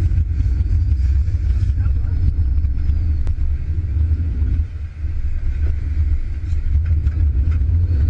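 Steady low rumble of a sportfishing boat running under power, with a few scattered knocks and clicks.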